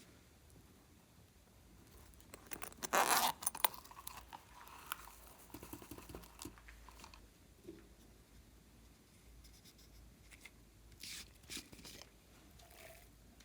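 Slime being squeezed and worked by hand with makeup and clay mixed in, giving crunchy crackling sounds. A dense burst of crackles comes about three seconds in, with scattered smaller ones later and a short cluster near the end.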